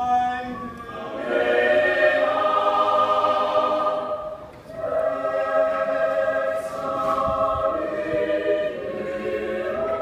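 Mixed choir of men's and women's voices singing held chords, with a brief break between phrases about halfway through.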